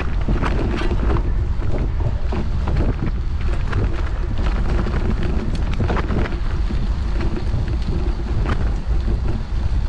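Wind buffeting the microphone with a constant low rumble, and scattered knocks and rattles throughout.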